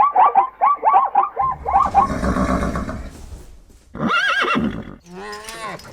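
A horse whinnying: a rapid, quavering series of high notes over the first couple of seconds, then a breathy rushing sound. Two shorter separate animal calls follow in the second half.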